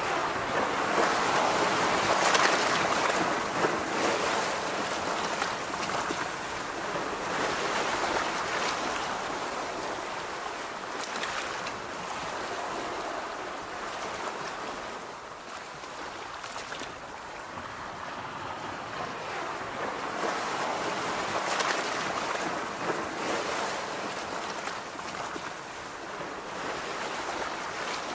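Sea waves breaking and washing ashore, the surf swelling and fading every few seconds.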